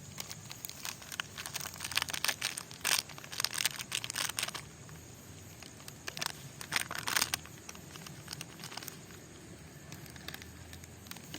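A plastic spice packet crinkling as it is handled and emptied, in scattered bursts of crackling with quieter gaps.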